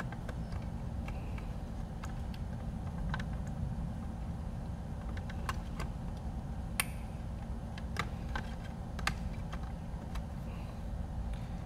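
Scattered light clicks and taps of the FrSky X10 Express radio's plastic back shell being handled and pressed onto the case, over a steady low hum. The shell is not seating fully because a stray wire is caught in the way.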